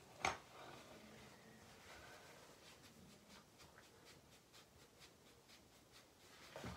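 Faint rubbing and light ticking of a tissue being dabbed and rubbed on skin to blend in colour-pencil makeup, with one sharp click shortly after the start.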